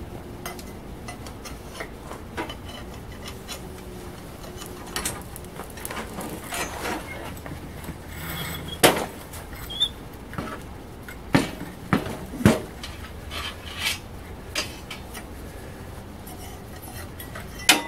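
Steel tongs and rods clanking and scraping against a heavy red-hot steel slab as it is gripped, lifted and set down: a series of separate sharp metal knocks, loudest about nine seconds in and three times between eleven and thirteen seconds in, over a low steady rumble.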